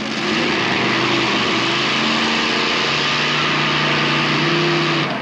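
Modified pulling tractor's engine running steadily at the start line, a continuous drone whose pitch steps up slightly about three seconds in, over a dense hiss.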